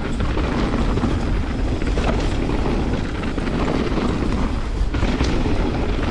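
Canyon Spectral 29 mountain bike riding a dirt trail: wind rushing over the microphone, knobby tyres rolling, and steady clattering and knocks from the bike over rough ground.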